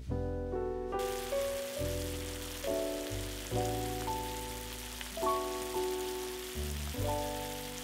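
Background music of short ringing notes. About a second in, a steady sizzle of food frying in a pan joins it and carries on underneath.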